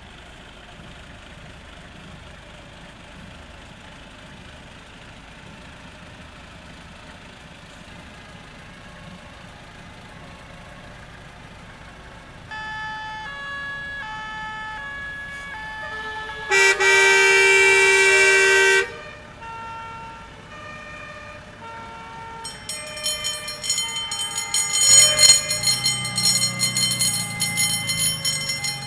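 Vintage fire engines sounding their sirens as they drive past. A two-tone siren alternates between two pitches from about twelve seconds in, then a loud horn blast holds for about two seconds. Near the end several sirens sound at once, overlapping, with a low wail rising and falling.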